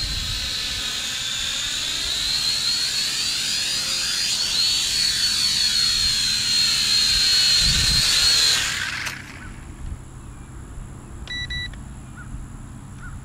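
Syma X5C mini quadcopter's four small brushed motors whining at a high pitch, with a wavering, shifting tone as it moves about near the ground. The whine grows louder, then stops abruptly about nine seconds in as the motors cut out at the end of the flight. A short beep follows about two seconds later.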